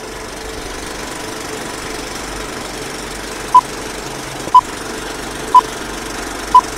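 Old-film countdown leader sound effect: a film projector clattering steadily, with a short beep once a second, four beeps starting about three and a half seconds in.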